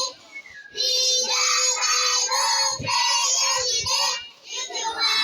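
A child singing in a high voice, in phrases about a second long, with a brief break about four seconds in.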